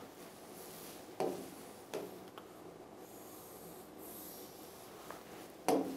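Quiet room tone with faint rubbing and a few soft, brief handling sounds.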